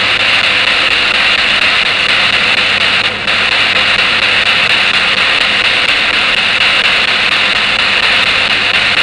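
Spirit box sweeping radio frequencies, giving a steady loud hiss of radio static with a short dropout about three seconds in.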